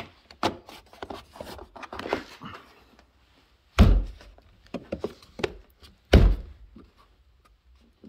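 Plastic interior door trim on a 2013 Kia Optima clicking and knocking as it is hooked into place by hand, then two heavy thumps about two and a half seconds apart as the trim is struck with the hand to seat its clips.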